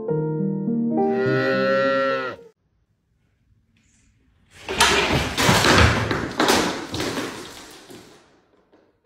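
Loud crashing and clattering of objects falling onto a hard floor: several impacts over about three seconds, fading out near the end.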